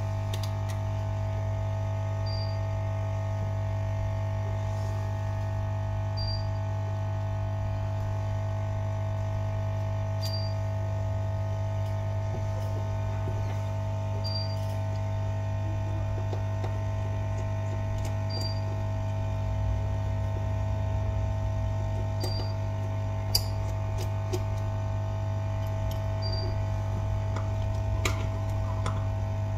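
Steady electrical hum with a faint short high beep about every four seconds. A few light clicks come near the end as small tools touch the phone.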